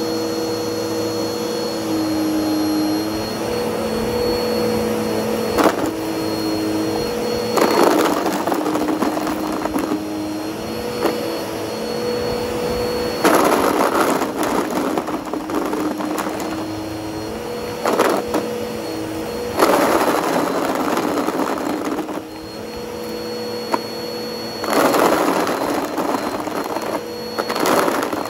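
Bissell CleanView OnePass upright vacuum cleaner running on carpet with a steady motor hum. It rises about four times into louder stretches of rushing, rattling noise lasting a few seconds each as the head is pushed into a pile of pencil-top cap erasers and sucks them up.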